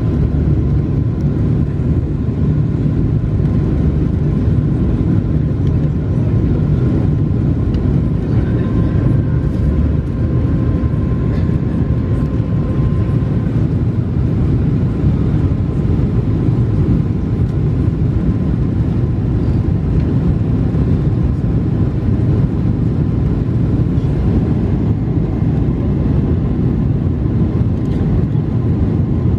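Steady cabin noise of a Boeing 747-436 with its Rolls-Royce RB211 engines running, heard from a seat over the wing: an even low rumble with a few faint whining tones in the first half.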